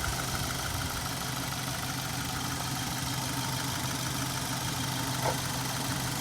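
Subaru Forester engine idling with the air conditioning running, a steady even hum.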